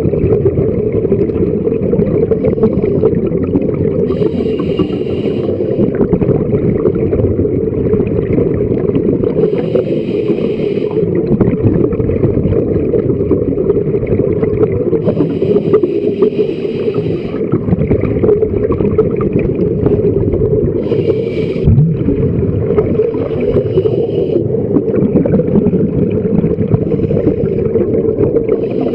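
Steady muffled underwater rumble, as heard through a camera housing on a scuba dive, with a hiss of breath through the diver's regulator about every five to six seconds.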